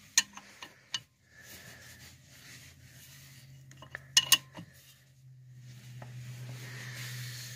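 Metal tools clinking as a socket and ratchet are fitted onto brake caliper bracket bolts: a few sharp clinks in the first second and a louder double clink about four seconds in. A low steady hum builds in the second half.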